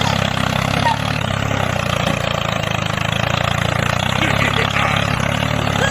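Miniature tractor's small engine running steadily with a rapid, even chug.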